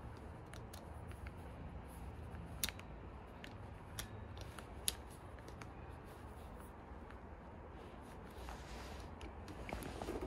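Small, sharp clicks and light rattles of a hand driver and its bit being handled and fitted, a few separate clicks standing out, the loudest about five seconds in, over a low steady background rumble.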